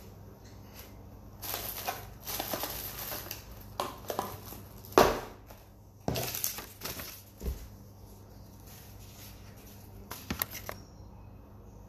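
A small white box handled close to the microphone: rustling and scraping, with a sharp knock about five seconds in and a few light taps near the end.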